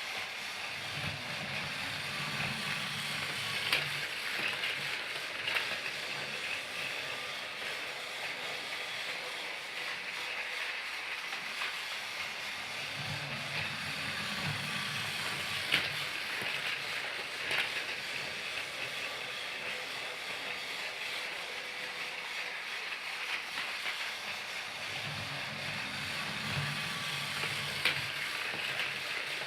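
Battery-operated Thomas the Tank Engine toy train running: a steady high motor whir with scattered sharp clicks, and a deeper rumble that swells and fades three times, about every twelve seconds.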